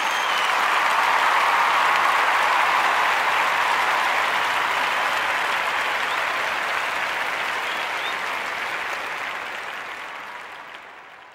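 Crowd applause, steady at first and slowly fading out over the last few seconds, with a brief whistle at the start.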